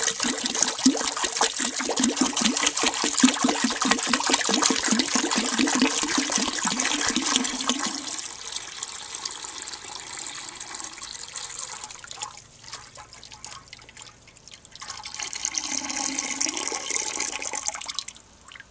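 A gallon jug of water is poured by hand into the empty tank of a 1970 American Standard Cadet toilet, splashing, with the jug glugging rapidly for the first half. The pour thins out about halfway, swells again with a rising gurgle, then stops just before the end.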